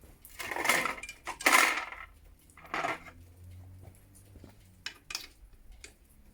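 Metal engine parts and tools clattering and scraping as the cylinder head of a two-cylinder motorcycle engine is taken apart, in three short rattles followed by two light clicks.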